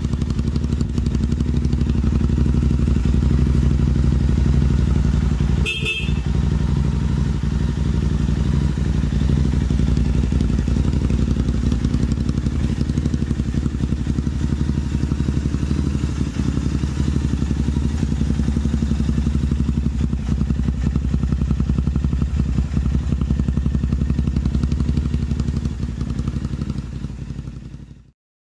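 Motorcycle engine running steadily, with no revving, then cutting off abruptly near the end. About six seconds in there is a brief click with a short high tone.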